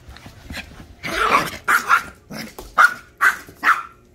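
Small Pomchi (Pomeranian–Chihuahua mix) dog barking: a quick string of short, high, sharp barks starting about a second in.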